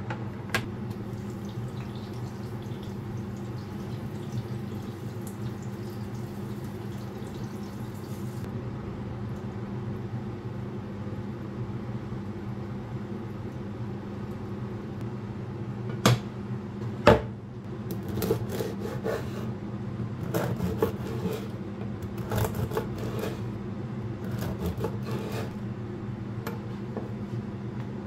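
A serrated bread knife sawing through a crusty baguette on a wooden cutting board, as a run of rasping strokes in the second half. Two sharp clacks come just before the sawing, and a steady low hum runs underneath.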